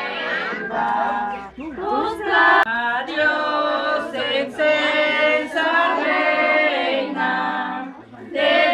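A group of voices singing together in long held notes, in phrases broken by short pauses about one and a half seconds in and near the end.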